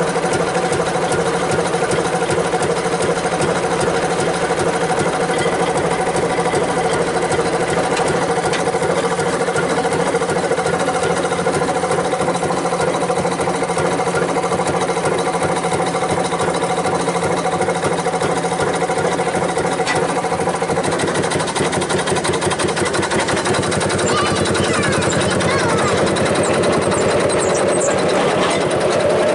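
Railroad speeder's small engine running steadily with a rapid mechanical chatter as the car rolls along the track. The engine note changes about 21 seconds in and grows louder toward the end.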